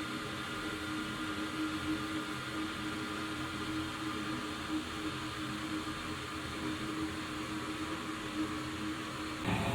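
Homemade waste oil furnace running: the steady rushing noise of the burner and its air blower, with a steady hum beneath. Near the end the sound changes abruptly to a fuller, lower noise.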